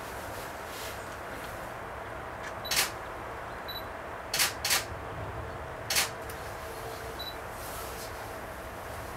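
Camera shutters clicking about four times as single shots, two of them in quick succession, over a steady background hiss.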